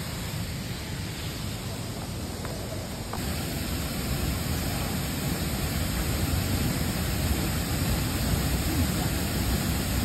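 Waterfall plunging into a pool, a steady rushing noise that grows louder about three seconds in.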